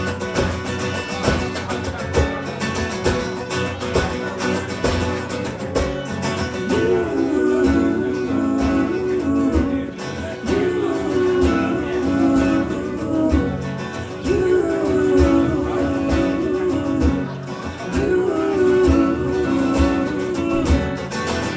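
Live acoustic guitar music in an instrumental break between sung lines: steady strumming with a melodic phrase that repeats about every four seconds.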